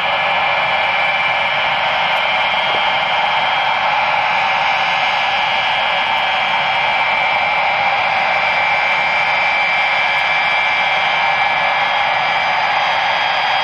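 Boeing 707's four Pratt & Whitney JT3D turbofans running steadily on the ground: a loud, even rush with a high-pitched whine of several held tones.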